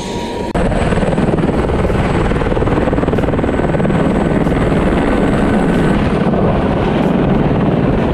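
Light turbine helicopter running at close range as it lifts off, its rotor and engine noise loud and steady. The sound cuts in abruptly about half a second in.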